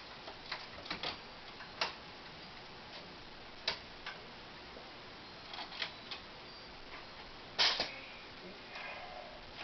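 Irregular sharp clicks and knocks of Lego plastic pieces being pried loose and handled, with the loudest knock near the end.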